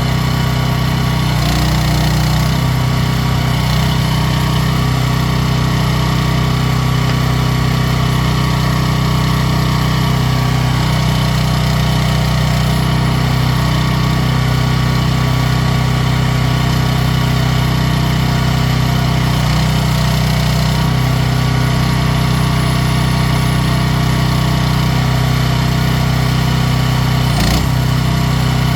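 Small engine of an AGT WH12R mini excavator running steadily at a constant speed, with a brief knock near the end.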